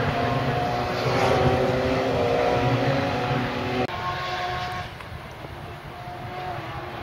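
Engines of several Radical sports-prototype racing cars running at speed as a pack goes by, their notes falling slightly in pitch. About four seconds in, the sound cuts to a single racing car passing, quieter.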